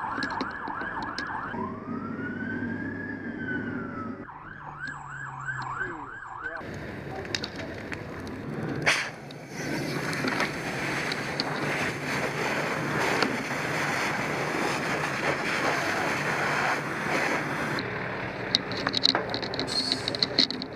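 An emergency vehicle's electronic siren switching between a fast yelp and a slower wail over a low engine drone. About six and a half seconds in it gives way abruptly to a loud, steady rushing noise with a single sharp bang a little later.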